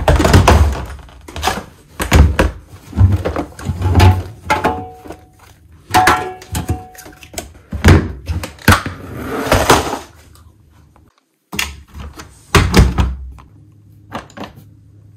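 Laundry handled at a front-loading washing machine: clothes moved between the drum and a plastic laundry basket, with a series of thunks and knocks from the machine door and the basket, and a brief gap about two-thirds of the way through.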